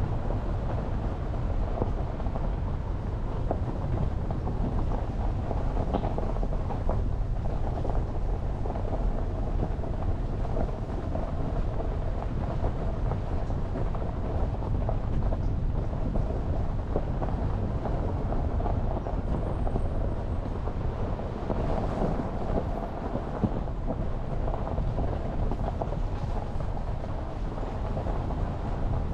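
Steady low rumble of a Jeep Renegade driving along: road and tyre noise with the engine running underneath.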